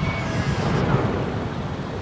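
Rumbling echo of an aerial firework shell's burst, fading away over about a second and a half.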